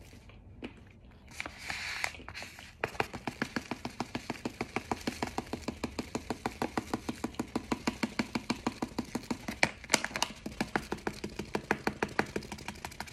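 Rapid, even crunching of a hard pressed cornstarch mix, at about four to five crunches a second. It starts about three seconds in, with a sharper crack near ten seconds.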